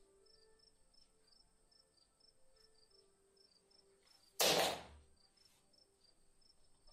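Faint, high-pitched chirps repeating evenly at about four a second, alternating between two close pitches. About four and a half seconds in, a single loud, noisy burst lasts about half a second and fades quickly.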